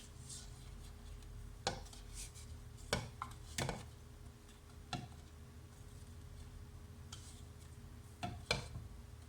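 A spatula scraping cake batter out of a bowl into a mug, with short scrapes and a handful of sharp knocks of utensil on crockery, the loudest about three seconds in and again near the end.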